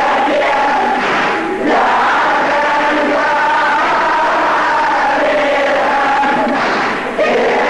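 A group of voices chanting a lament refrain in unison, the Arabic Shia latmiya for Hussein, with short breaks between lines.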